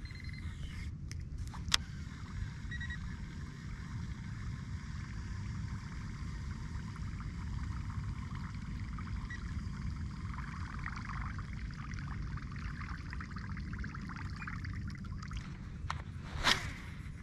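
Kayak on calm lake water: a steady low rumble with faint water trickle, and two sharp clicks, a light one about two seconds in and a louder one near the end.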